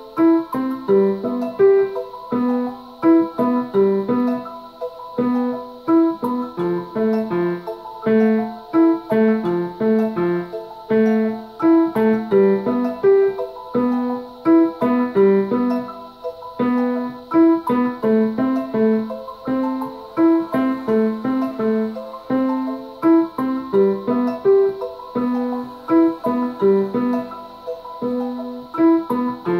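Piano music: a left-hand accompaniment part played on a Casio digital piano around middle C, along with a recording of the piece.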